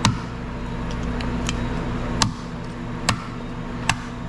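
Knife chopping on a cutting board: five sharp, separate strikes about a second apart, over a steady low hum.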